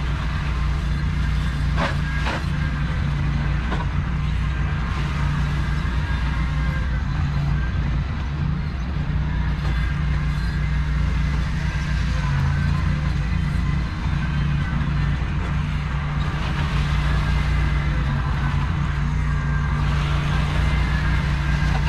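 Ventrac compact tractor's engine running steadily at a constant speed, with a few brief clicks about two seconds in.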